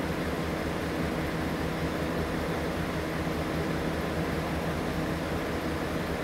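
Steady summer night ambience: a dense, unbroken chorus of insects over a low steady hum.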